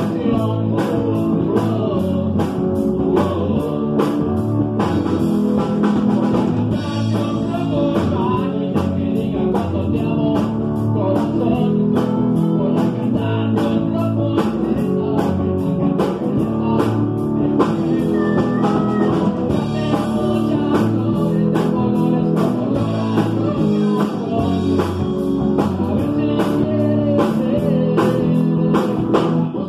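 A live band playing a song, recorded in the room: drum kit keeping a steady beat under electric bass and electric guitar, with a man singing into a microphone.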